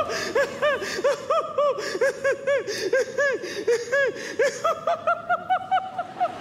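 A clown's high-pitched, squeaky giggling: a quick, even run of short rising-and-falling 'hee' sounds, about three or four a second.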